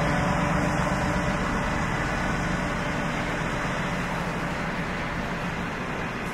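Freight train's box wagons rolling past: a steady rolling noise of steel wheels on rails that slowly gets quieter.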